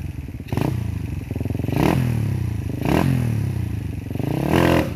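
A tuned, high-compression Suzuki Raider R150's single-cylinder engine is revved in about four sharp blips, each rising and falling back.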